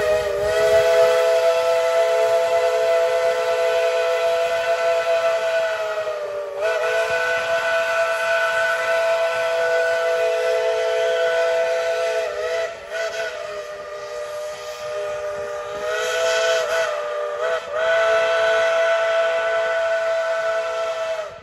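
Steam locomotive whistle blown in long drawn-out blasts, several tones sounding together as a chord. The pitch dips and wavers a few times, with short breaks about two-thirds of the way through, before a final steady blast that cuts off at the end.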